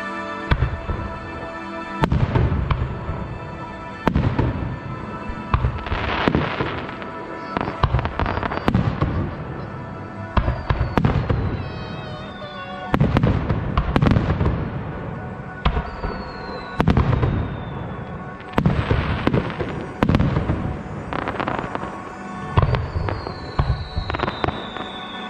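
Aerial fireworks shells bursting in quick succession, a sharp bang every one to two seconds with crackle after some of them.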